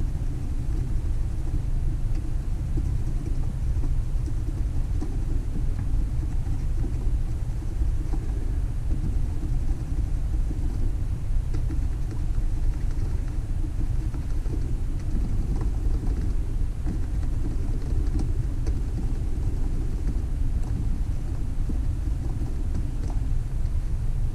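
Steady low rumble with faint scratching from a fiberglass pencil scrubbing the copper commutator of a model locomotive motor clean.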